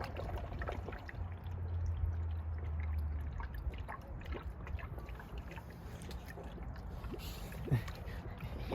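Coolant gulping and gurgling down into a newly fitted Mishimoto radiator on an Infiniti G35 as the cooling system is filled, with small drips and bubbles. The system is drawing the coolant in and pushing trapped air out while the level drops.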